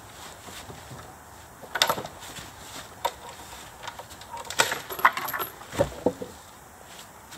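Irregular knocks and clinks from work on a driveway gate, with wood and metal being handled: a sharp knock about two seconds in, another near three seconds, then a busier run of knocks and clinks between about four and a half and six seconds.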